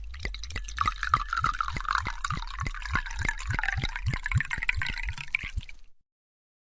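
Liquid pouring from a bottle, glugging in regular pulses about four a second, then ending about six seconds in.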